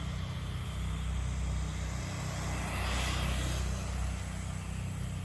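Electric motor of an RC rally car whining as its tyres spin and slide across icy snow, swelling to its loudest about three seconds in and then fading, over a steady low rumble.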